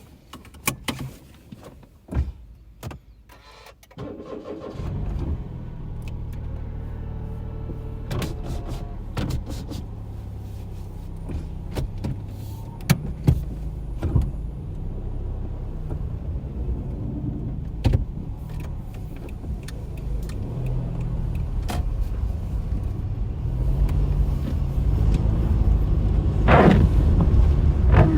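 A few clicks and knocks, then a car engine starts about four seconds in and keeps running, growing louder toward the end.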